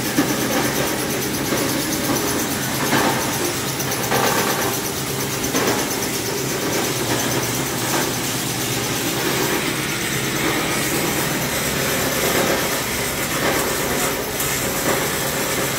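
Copper wire granulator running: a steady, loud machine noise of motor, blower and vibrating separator, with repeated louder surges every second or so as scrap wire goes through.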